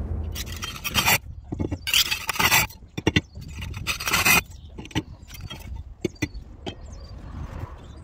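Flat roof tiles scraping against each other as they are slid and lifted by hand: three loud scrapes in the first half, then scattered lighter clicks and knocks.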